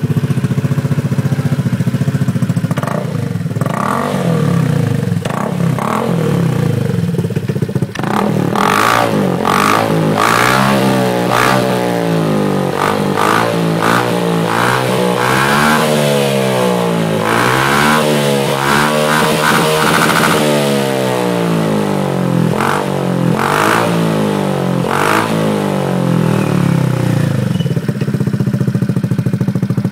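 Honda PCX 125 scooter's single-cylinder four-stroke engine running through an IXIL exhaust with its baffle removed. It idles, then is revved in a long series of throttle blips that rise and fall in pitch, and settles back to idle near the end.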